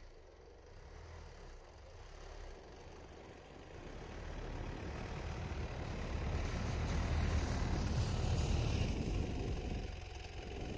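Mitsubishi Pajero 4's 4M41 3.2-litre turbodiesel running as the SUV crawls through deep snow, growing steadily louder as it comes close, with its tyres pushing through the snow.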